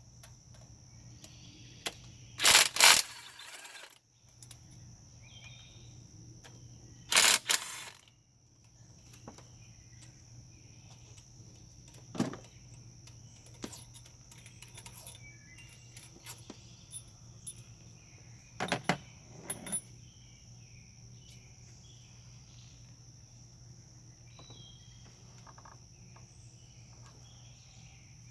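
Hand tools and small metal fasteners clicking and clinking while T27 Torx bolts are worked off the engine, with two loud bursts of rapid clicks about 2.5 and 7 seconds in and a few single clinks later. A steady low hum runs underneath.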